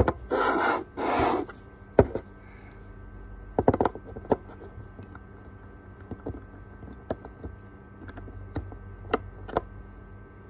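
Handling of a plastic serum dropper bottle: two short rubbing swishes near the start, then scattered small clicks and taps, with a quick cluster of them about four seconds in.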